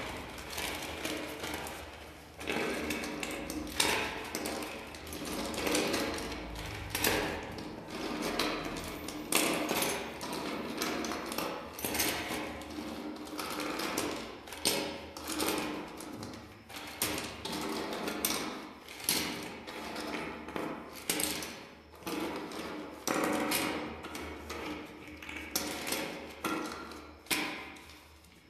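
Gloved hands rummaging in a plastic bag of plastic flower-shaped beads: the bag crinkles and the plastic pieces click and clatter against each other in irregular runs.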